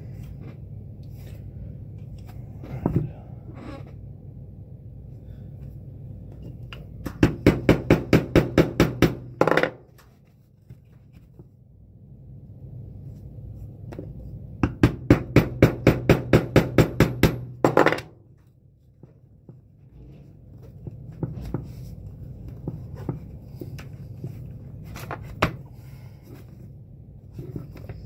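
Mallet tapping a stitch punch through leather for boot resoling: two runs of quick, even taps, about six a second, each lasting two to three seconds, with a few single knocks between.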